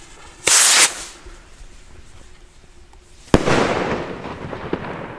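Zink Z1 firework rocket's break charge bursting overhead: one sharp bang about three seconds in, echoing as it dies away. A short loud hiss comes about half a second in.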